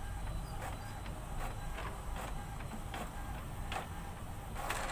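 Epson all-in-one printer's scanner carriage moving slowly under the glass during a black-and-white copy: a steady low motor hum with faint, irregular clicks.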